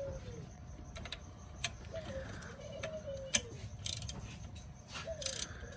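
Pulley puller being turned with a hand wrench on the Camaro's LT1 crankshaft pulley: sharp ratchet-like clicks and repeated short squeaks as the old pulley is slowly drawn off the crank snout.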